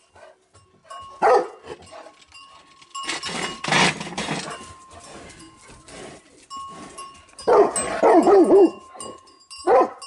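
German shorthaired pointer barking at cows: one loud bark about a second in, then a quick run of barks near the end with a last bark just before it stops. A burst of noise comes in the middle.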